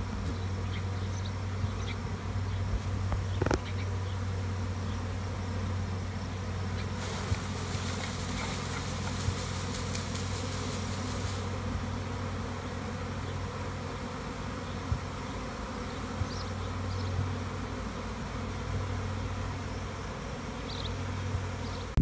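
A swarm of honeybees buzzing steadily in a dense hum around a hive box, newly hived and settling in.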